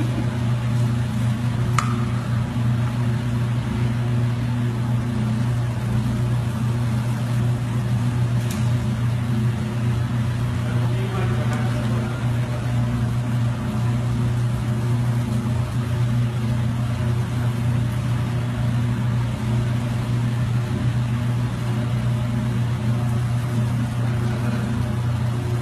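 A steady, unchanging low machine hum with a faint hiss above it.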